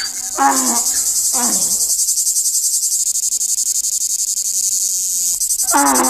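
Cicadas singing: a steady, high, rapidly pulsing buzz. A few short pitched calls that rise and fall are layered over it in the first two seconds and again near the end.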